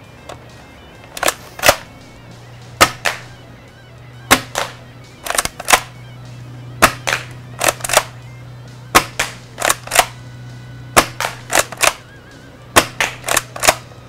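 Cyma CM352 spring-powered airsoft pump shotgun being fired again and again at a target: a string of sharp snaps, mostly in close pairs a fraction of a second apart, with a new pair or group about every second.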